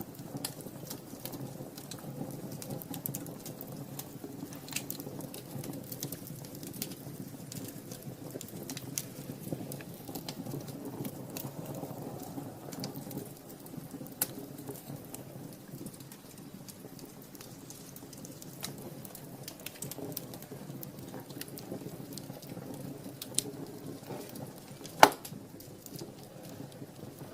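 Wood fire burning in a fireplace, crackling with scattered small snaps over a steady low rush, and one sharp loud pop about 25 seconds in.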